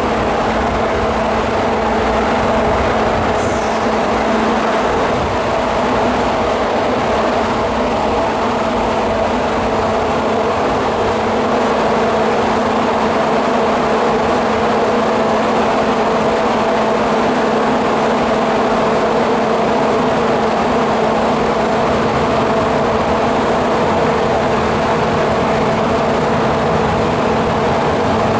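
Steady hum and rumble of a metro train in an underground station, with several held tones, unchanging throughout.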